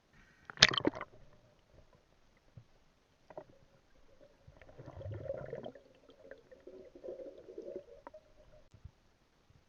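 Water sloshing and gurgling against the camera in irregular spells, with a sharp knock about half a second in and a few fainter clicks.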